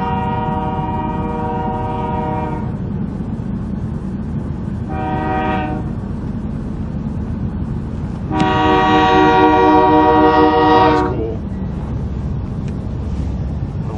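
CN diesel freight locomotive's multi-chime air horn sounding for a grade crossing: a long blast, a short blast, then a final long blast that is the loudest, the end of the long-long-short-long crossing signal. A steady low rumble from the approaching locomotive runs underneath.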